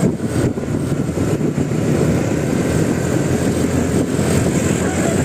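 Bus engine running, a steady low rumble.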